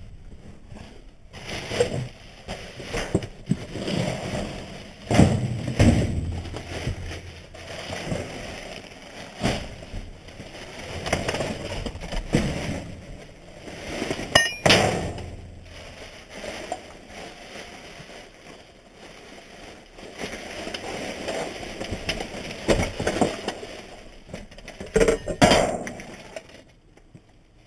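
Rummaging through dumpster garbage by hand: plastic garbage bags rustling and crinkling while boxes and loose items knock and shift, with one sharp clink about halfway through.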